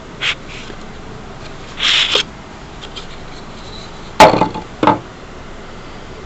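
Drill bits and the hard case of a rotary hammer drill being handled: a light knock, a brief rattle about two seconds in, then two sharp knocks of hard objects a bit after four seconds, the first the loudest.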